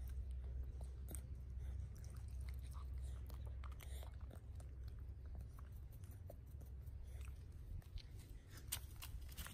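Macaque chewing and biting fruit close to the microphone: irregular small wet clicks and smacks over a steady low rumble.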